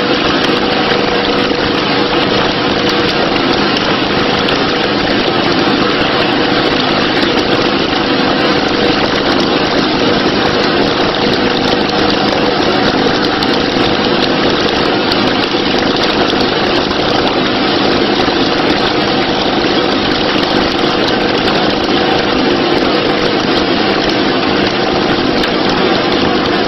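Small boat motor running steadily at a constant speed.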